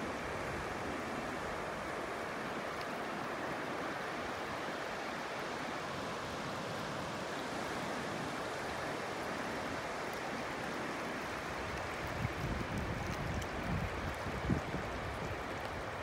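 Steady rushing of ocean surf and shallow water washing over sand, mixed with wind. In the last few seconds, gusts buffet the microphone.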